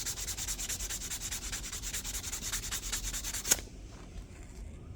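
Fine 600-grit sandpaper rubbed back and forth by hand over a small stamped-metal door-lock latch, in quick even strokes. The strokes stop about three and a half seconds in with a sharp click.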